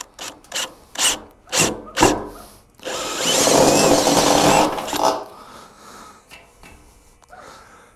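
Power drill with a step bit cutting a hole through the wall of a car's gas tank: a few short bursts of drilling, then about two seconds of steady cutting with a thin metallic squeal before it stops.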